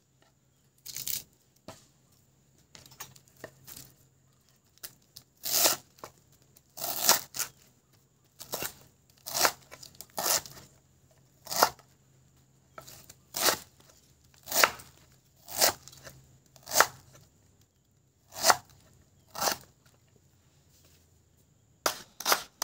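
Kitchen knife slicing through torch ginger flower buds on a wooden cutting board, one crisp cut roughly every second, quickening into rapid chopping near the end.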